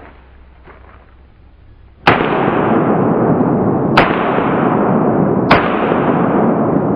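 Three shots from a .45 ACP 1911 pistol, one per target, about two seconds and then a second and a half apart. A loud steady rushing noise starts with the first shot and runs under the rest.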